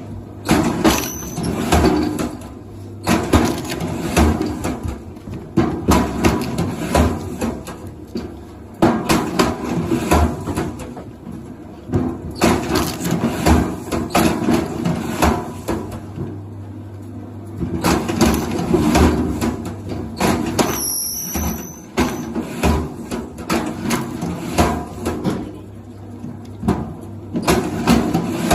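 Repeated knocking and clattering on wood in bursts every few seconds, over a steady low hum, with two brief high squeaks.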